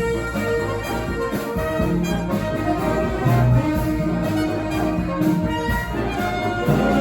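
Live street band playing an instrumental tune, brass horns carrying the melody with held notes over a steady beat.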